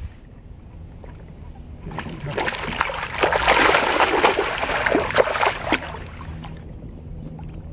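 Water splashing and sloshing for about four seconds, starting about two seconds in and then fading.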